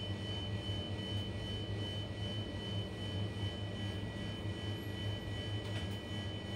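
Steady machine hum of a running appliance motor or fan, low with two faint high-pitched tones over it. A faint tap comes near the end.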